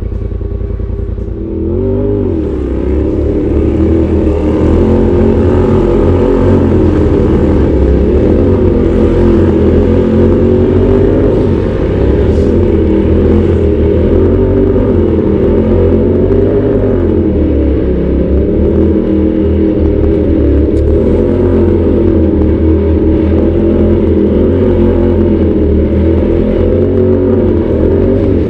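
Side-by-side UTV engine running under load, its revs rising and falling as the throttle is worked. It runs low and steady at first, then picks up about two seconds in.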